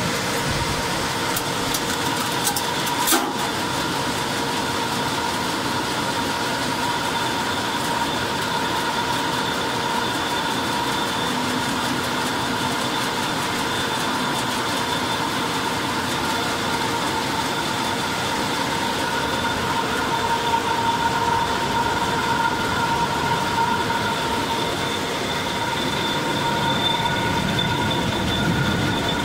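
Coffee cherry processing machinery running: the pulper and vibrating screen make a steady mechanical noise with a constant high whine. A sharp click comes about three seconds in.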